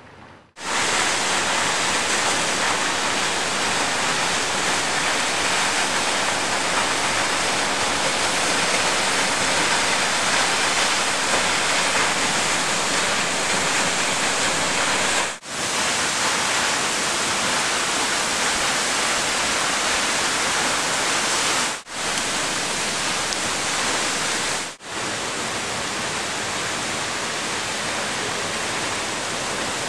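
Waterfall pouring down a cliff into a pool: a loud, steady rush of falling and splashing water. It drops out briefly about halfway through and twice more later, and is a little quieter after the last break.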